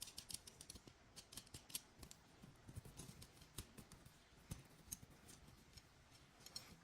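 Faint, irregular metallic clicks and light scraping of a large steel nut being turned by hand along threaded rods, its threads and the rod's threads ticking against each other.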